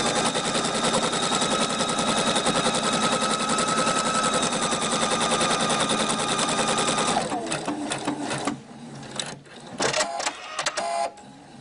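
Electric sewing machine sewing a straight seam at steady speed: a fast, even needle rhythm over a motor whine. About seven seconds in it stops, and a few clicks and a short whir follow near the end.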